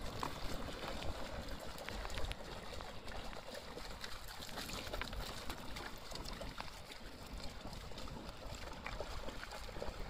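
River water running steadily along a pebbly shore, with scattered small clicks of stones shifting under dogs' paws.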